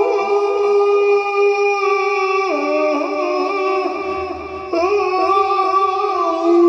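Electronic keyboard sounding sustained chords on a synthetic voice-like preset. A run of quick rising swoops dies away in the first second, the chord steps lower about two and a half seconds in, and a new chord comes in a little before the five-second mark.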